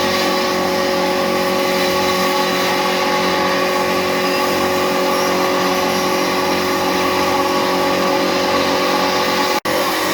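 Rice flour milling machine running steadily under load, a constant loud mechanical hum with a fixed whine. The sound drops out for an instant near the end.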